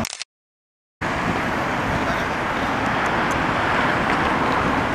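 Steady road traffic noise with no clear rhythm. An edit leaves the first second silent.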